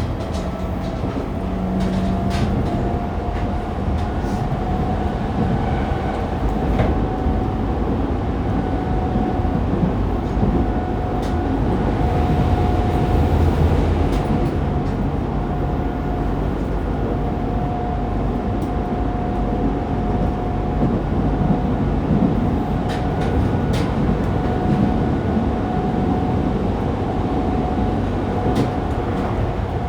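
Interior running sound of a Fukuoka City Subway 2000 series train (Hitachi GTO-VVVF) at steady speed between stations: a continuous rumble of wheels on rail with a steady whine holding one pitch, and occasional light clicks.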